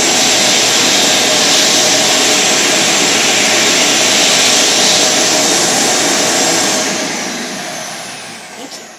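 Pet blow dryer running with a steady, loud rush of air, then switched off about seven seconds in and winding down to quiet.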